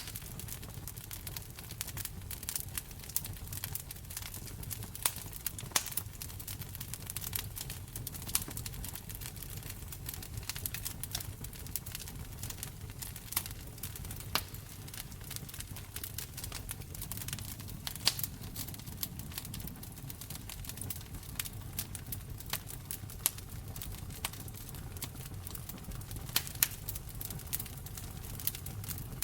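Wood fire crackling in a fireplace: frequent irregular sharp pops and snaps over a low steady rumble of the flames.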